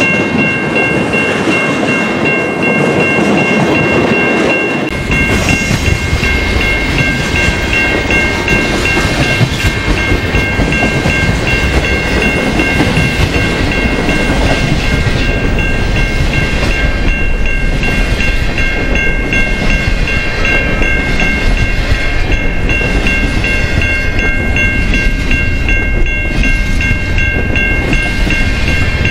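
Double-stack intermodal freight train's container well cars rolling past: a steady rumble of steel wheels on rail with a steady high-pitched squeal over it. The low rumble grows heavier about five seconds in.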